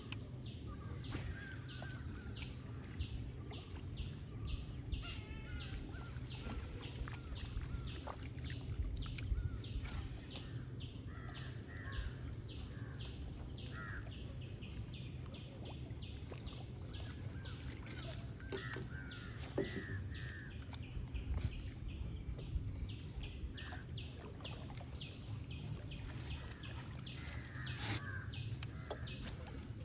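Riverside ambience: birds calling now and then over a steady, evenly repeating high pulsing at about two to three pulses a second, with a low rumble underneath.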